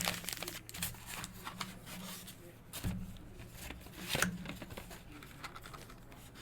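Markers and paper being handled for colouring: irregular light scratches, taps and rustles, over a low steady hum.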